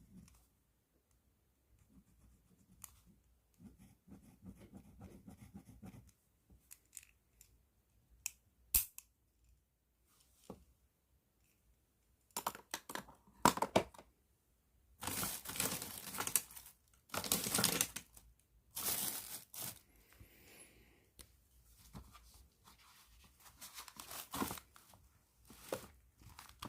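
Plastic bag crinkling and rustling as a pen is handled in it, in several loud bursts in the middle, with faint scratching and a sharp tap in the quieter first part.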